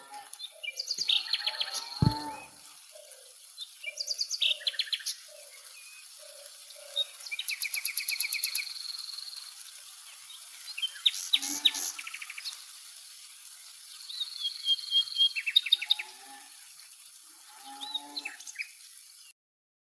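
Birds chirping in repeated bouts of rapid chirps and trills, with lower calls in between. A single sharp knock about two seconds in, and the sound cuts off suddenly just before the end.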